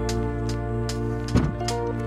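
Background music with held chords and a regular beat, with a brief knock about one and a half seconds in.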